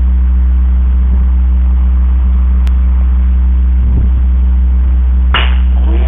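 Steady low electrical hum on the recording, with one sharp smack about five seconds in.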